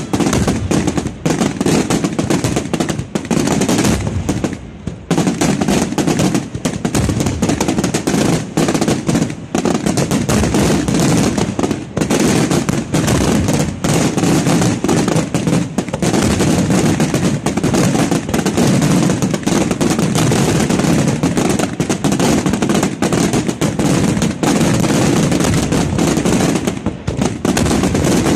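Fireworks display: a dense, continuous barrage of rapid bangs from bursting aerial shells, with a brief lull about five seconds in.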